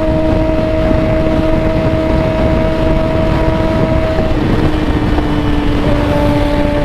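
Yamaha XJ6 inline-four motorcycle engine running at a steady cruising pitch, heard over heavy wind rush on the microphone; the engine note dips slightly about four seconds in and rises again near the end.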